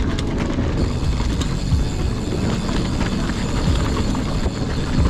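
Mountain bike riding over a rough dirt trail: a loud, continuous rumble of tyres and rattling of the bike, with scattered sharp knocks.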